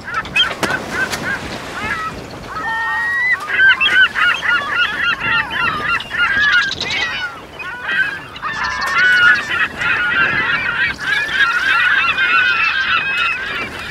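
Many birds calling at once: dense, overlapping honking calls that thin out briefly about seven seconds in, then build again.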